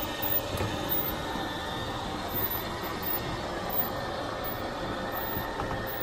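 Electric slide-out mechanism of a Forest River Forester 3011DS bedroom slide running steadily as the slide room extends.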